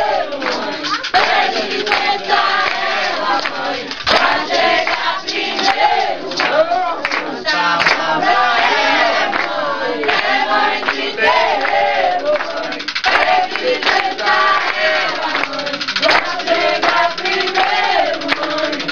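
A group of voices singing a ceremonial chant together, likely an Umbanda ponto, with many short sharp strikes mixed in throughout.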